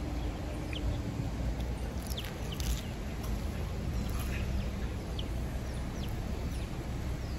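Outdoor ambience: faint, short bird chirps scattered throughout, over a steady low rumble.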